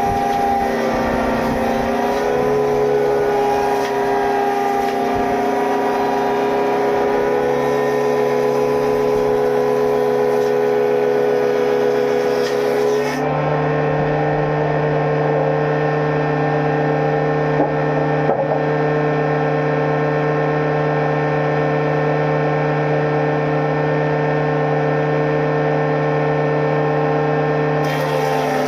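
Sawmill woodworking machinery running steadily with a constant motor hum. The pitch shifts abruptly about 13 seconds in.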